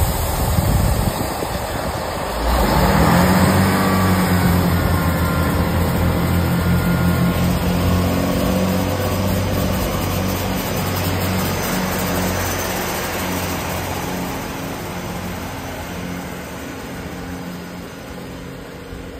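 Diesel train engines come in loudly about two and a half seconds in, a steady running drone that slowly fades as the train moves away.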